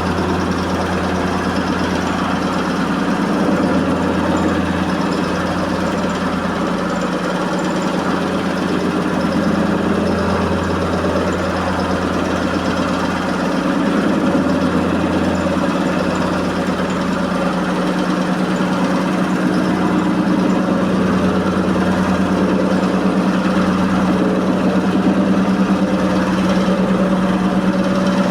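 Electrolux 15 kg commercial washing machine spinning at high speed with a very unbalanced load: a steady loud motor and drum hum with a deeper rumble that swells and fades every few seconds.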